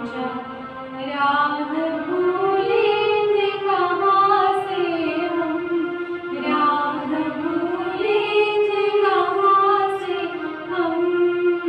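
Two women singing a slow song in long held notes, accompanied on a portable electronic keyboard.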